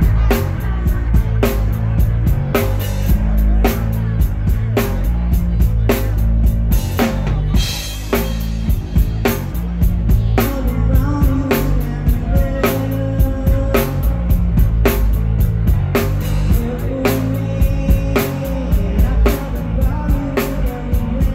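Live noise-rock band playing loud: drums hitting about twice a second over heavy bass and distorted electric guitar, with a short break in the beat about seven to eight seconds in.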